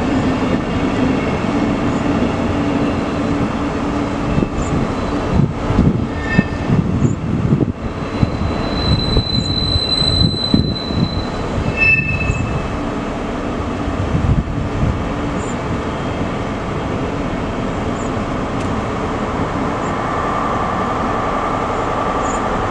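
Locomotive-hauled n-Wagen passenger coaches rolling past, their wheels clattering over rail joints and points, with brief high-pitched wheel squeals about nine to twelve seconds in.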